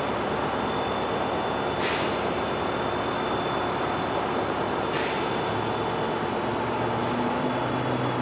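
Siemens Charger diesel locomotives idling at a standstill: a steady running drone with a thin high whine. Two short hisses of released air come about two and five seconds in.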